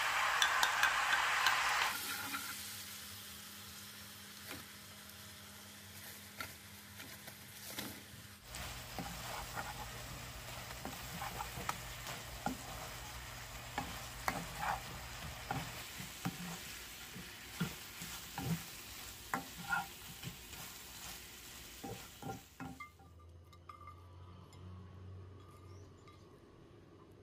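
Sauce hisses loudly as it is poured into a hot frying pan, then keeps sizzling and bubbling. About eight seconds in, fried anchovy and green-pepper fritters are tossed through the sauce with a wooden spatula, making repeated sharp scrapes and taps against the pan over the sizzle. The sound drops away near the end.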